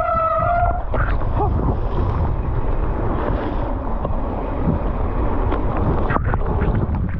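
Mountain bike riding fast down a wet dirt trail: wind buffeting the microphone over a steady rumble of tyres on the track, with scattered rattles and knocks from the bike over bumps, one sharper knock about six seconds in. A steady pitched buzz cuts off just under a second in.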